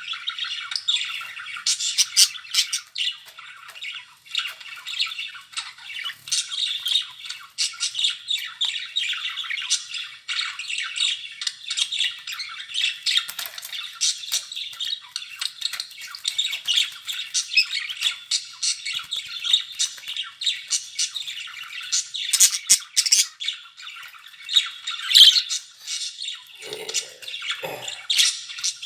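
Budgerigars chattering and warbling without a break, with sharp squawks and chirps mixed through the chatter.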